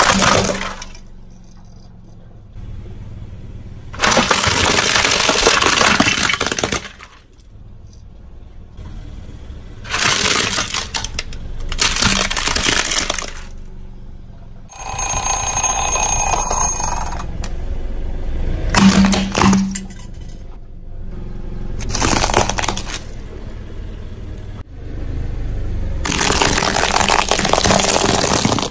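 Objects crushed under a car tire: a series of loud crunching, cracking bursts, several seconds apart, with quieter stretches between.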